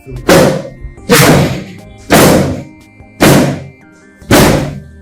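Five heavy thumps, about one a second, each dying away quickly, over faint background music.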